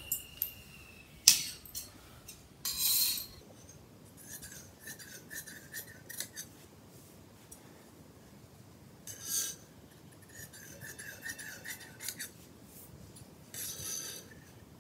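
Large tailoring scissors cutting through blouse fabric along chalk lines: a series of short snips and crunching strokes of the blades through cloth, with a few louder rasping cuts and a sharp click about a second in.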